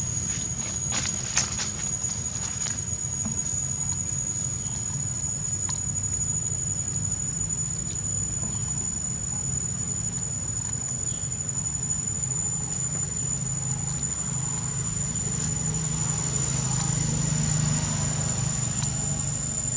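Steady high-pitched insect drone, with a low hum underneath and a few sharp clicks a second or two in.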